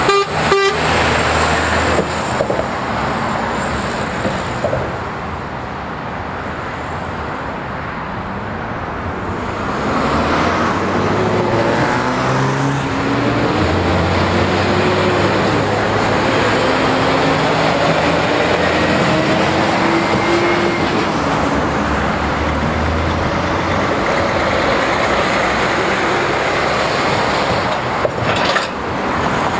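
Heavy lorries' diesel engines passing on a busy road, with tyre and traffic noise throughout. Partway through, an engine note rises in pitch several times in a row as a lorry accelerates away.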